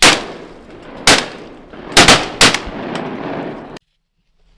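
Several shotguns fired at ducks in a rapid volley, about five shots within three seconds, the last ones coming close together. The sound cuts off suddenly near the end.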